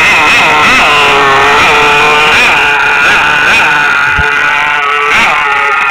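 Small nitro-fuelled engine of a radio-controlled car running at high pitch, its revs rising and falling briefly again and again, about once a second.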